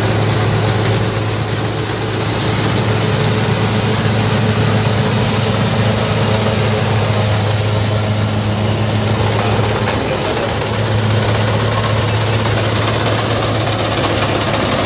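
Kubota combine harvester's diesel engine running steadily: a loud, continuous drone with a strong low hum.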